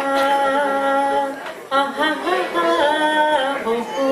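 A woman singing unaccompanied into a handheld microphone, holding long, steady notes with a short pause for breath about a second and a half in.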